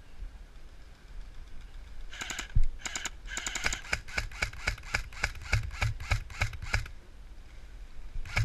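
Airsoft electric rifle firing a string of shots, a quick cluster and then steady rapid shots about four or five a second, stopping about seven seconds in. A single louder thump comes early in the string.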